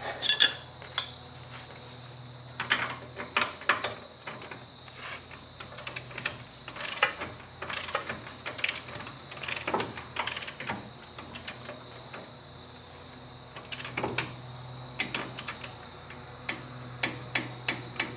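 Torque wrench ratcheting in short strokes as a suspension nut is tightened to 40 ft-lb, giving irregular sharp clicks, with a quicker run of clicks near the end.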